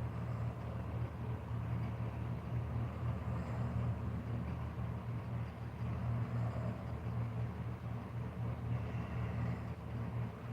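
Steady low mechanical hum over a constant rushing noise, running without a break.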